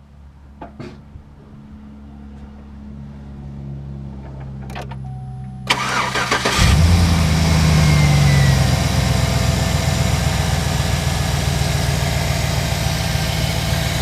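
A few clicks, then the Chevy pickup's engine cranks and starts about six seconds in and settles into a steady idle. The belt drive runs with no power steering whine, after a replacement pulley has been fitted.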